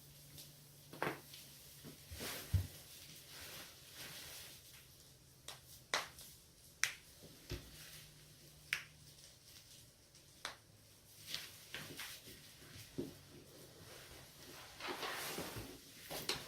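A person's joints cracking: about a dozen sharp pops and cracks at irregular intervals, with a quicker flurry of pops near the end.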